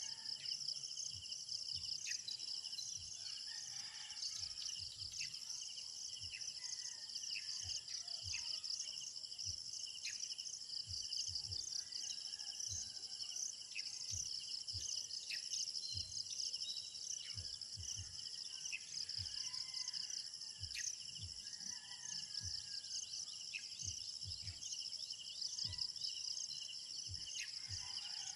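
A steady chorus of insects trilling in several high-pitched layers, with short bird chirps scattered through it and faint low thumps now and then.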